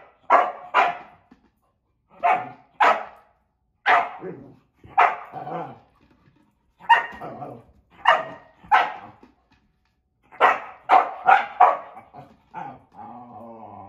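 Nova Scotia duck tolling retriever barking again and again in quick clusters of two or three sharp barks, then a longer, drawn-out vocal sound near the end.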